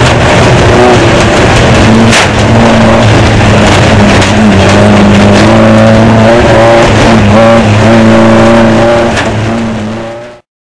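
Off-road desert race car's engine running hard, heard from the onboard camera, its note rising and falling a little, with a few sharp knocks over it. The sound fades out near the end.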